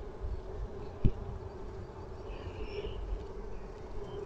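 Honeybees humming from an open hive and a frame covered in bees held close by, a steady buzz. A single light knock about a second in.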